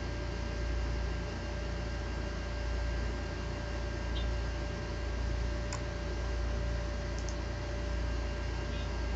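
Sony Vaio E series laptop giving off a few faint, short clicks, spaced a second or more apart, over a steady hum: the constant clicking fault of this brand-new laptop.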